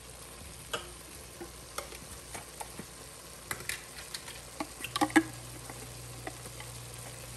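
Ground Italian sausage frying in a Dutch oven: a soft sizzle with scattered sharp crackles and pops, busiest about four to five seconds in. A low steady hum comes in about five seconds in.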